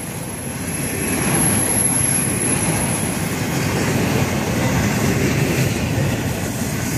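Intermodal freight train of double-stack container well cars rolling past at track side, a steady rumble of wheels on rail that grows louder about a second in. A thin high whine fades out about three seconds in.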